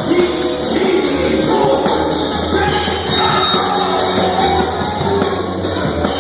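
Live church band music with a steady drum and cymbal beat under sustained bass, with voices singing over it.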